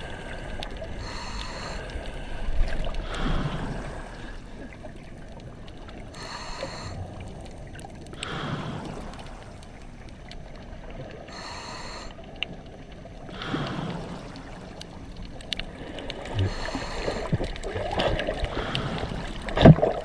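A diver breathing underwater, heard close to the camera. A hissing in-breath is followed by a bubbling out-breath, and the cycle repeats about every five seconds. A sharp knock comes near the end.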